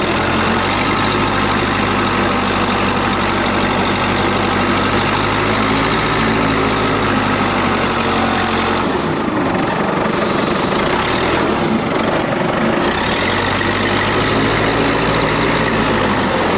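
Vehicle engine running steadily, its note rising briefly about six seconds in and changing from about nine to thirteen seconds in, as if revved or put under load, then settling again.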